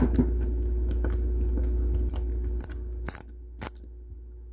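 Screwdriver driving a small M2 stainless steel screw into a Hot Wheels car's drilled diecast metal base: quick small clicks about four a second, then a few sharper clicks a little past halfway as the screw tightens, then it stops.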